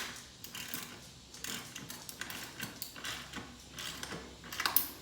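Metal clicks and scrapes of a tool tightening the clamp nut on a bicycle seat, irregular and a little louder near the end.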